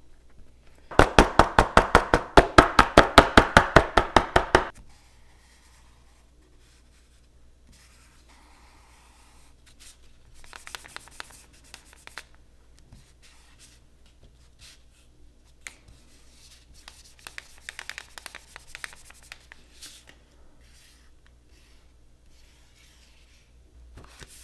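Acrylic paint marker being shaken: a quick, even run of loud rattling clicks, about seven a second, starting about a second in and lasting some three and a half seconds. Later, the marker's tip scratches faintly across paper in short strokes.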